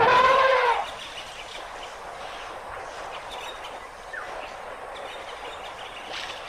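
An African elephant trumpets once: a loud call, just under a second long, that rises and falls in pitch. A quieter outdoor background with a few faint bird chirps follows.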